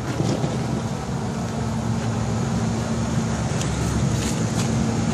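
Steady low mechanical hum with a constant pitch, over a rough low rumble. A few light clicks about three and a half to four and a half seconds in.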